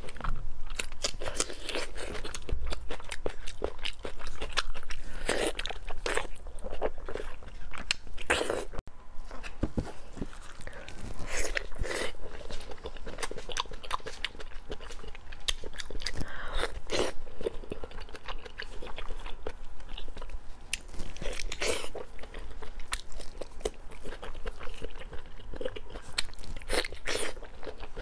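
Close-miked biting, crunching and chewing of pork belly, many crisp crunches in quick succession, with a brief drop-out about nine seconds in.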